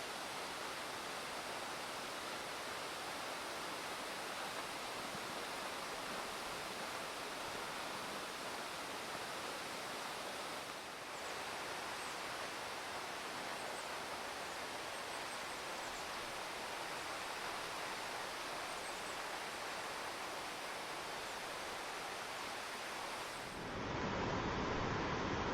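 Waterfall rushing steadily, an even roar of falling water. Near the end it switches to a louder, deeper rush.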